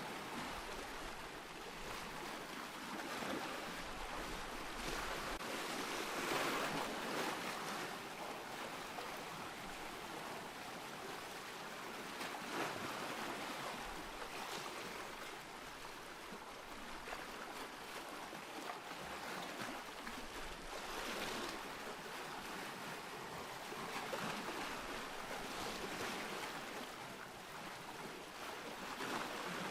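Ocean waves breaking and washing in, a steady hiss of surf that swells every few seconds as each wave comes in.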